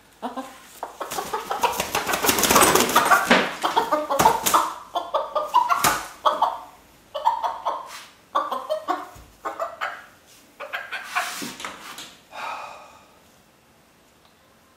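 An egg-bound hen squawking and clucking over and over as she is handled and held down on a workbench, with rustling and knocking from the scuffle, loudest in the first few seconds.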